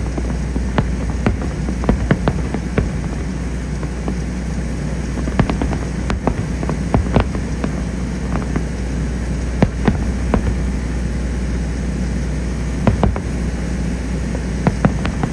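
Aerial fireworks shells bursting in a continuous barrage: many irregular sharp bangs and crackles over a steady low rumble.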